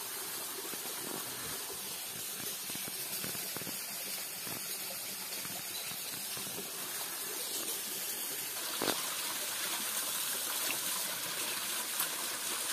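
Small forest stream spilling over rocks: a steady rush of running water.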